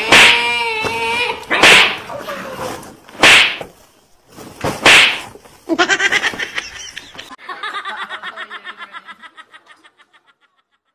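Four sharp whacks about a second and a half apart, with a pitched cry after the first. Then a woman's hearty laughter in quick pulses that fades out near the end.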